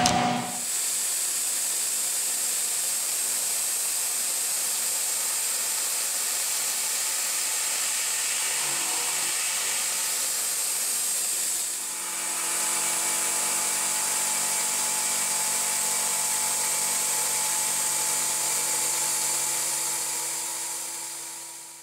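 CNC milling machine's spindle driving an end mill that cuts out a lug-bolt hole in a cast-iron brake rotor, with a steady high hiss. About twelve seconds in the sound dips briefly, then carries on with a few steady hums and whines added.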